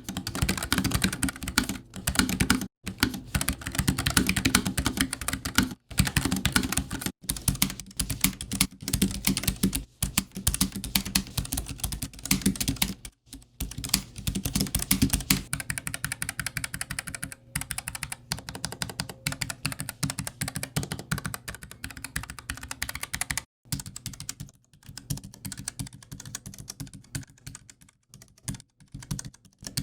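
Continuous typing on a low-profile mechanical keyboard: a rapid, steady patter of key clicks. The typing gets quieter a little past halfway.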